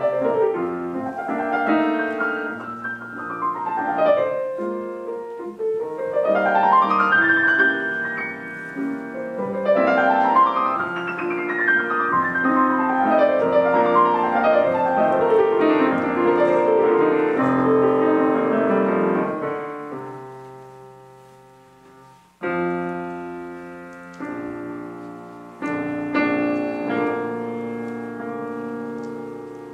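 Solo piano playing fast runs that sweep up and down the keyboard, then fading away about twenty seconds in before a few sustained chords are struck.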